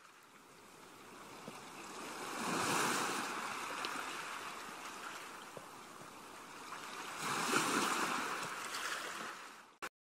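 Sea waves breaking on a beach: two swells of rushing surf about five seconds apart, fading in at the start and cutting off suddenly near the end.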